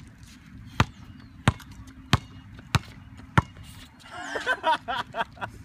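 Basketball dribbled on a hard outdoor court: five sharp bounces about two-thirds of a second apart. About four seconds in the bouncing stops and a second or so of high, wavering sounds follows.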